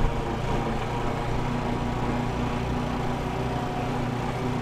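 ATV engine running steadily while the quad is ridden across the farm.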